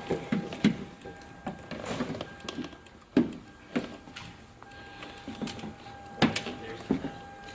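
Scattered clicks and knocks of hands working plastic door trim and wiring connectors on a Toyota Camry door, with a sharp knock about three seconds in and another about six seconds in. A faint steady tone hums underneath.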